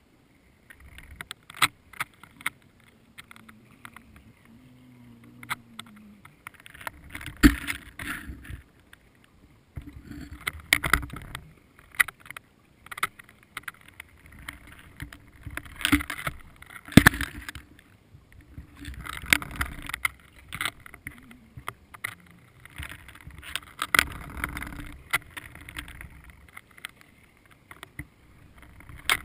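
Water noise heard through an underwater camera housing: bursts of rushing and sloshing every few seconds, with sharp clicks and knocks against the housing.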